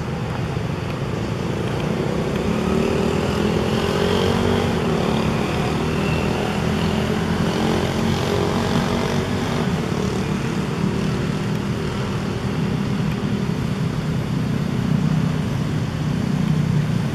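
Steady engine rumble with a low hum, its pitch drifting slowly up and down.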